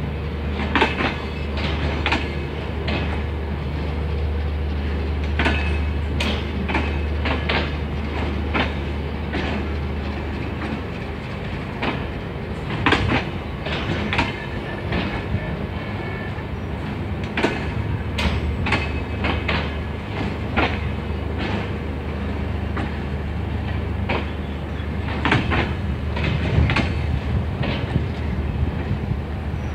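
An empty rake of passenger coaches rolling slowly along the track, its wheels clicking irregularly over the rail joints over a steady low rumble.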